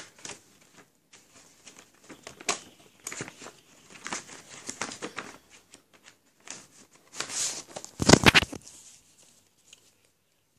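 Handling noise close to a covered phone's microphone: irregular rustling and crinkling with small knocks, a loud burst of rubbing about eight seconds in, then quiet near the end.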